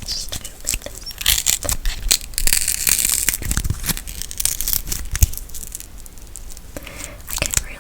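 Close-up crackling and scratching right at an ASMR microphone, dense with sharp little clicks, loudest in the middle and with another brief flare near the end.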